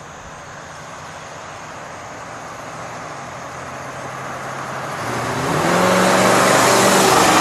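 1967 Oldsmobile Toronado's 425 cubic-inch V8 and its tyres approaching on the road, growing steadily louder. The engine note rises about five seconds in as the car accelerates, and it is loudest near the end.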